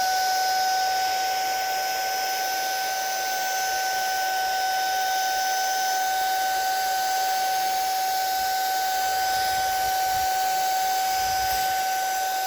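Xiaomi cordless car vacuum cleaner running on its low-power setting: a steady high-pitched motor whine over a rush of air.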